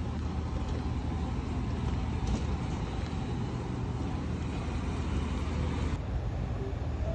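Steady street traffic noise with a low engine hum.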